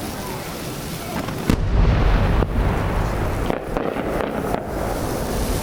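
A large aerial firework shell (a 10-inch shakudama) bursting about a second and a half in with a deep boom that rolls on, followed by several sharper cracks.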